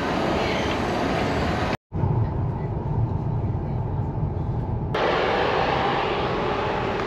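Steady noise of a station platform beside a standing passenger train, cut off about two seconds in. It gives way to the low rumble of a moving train heard from inside a carriage, then cuts back to platform noise about five seconds in.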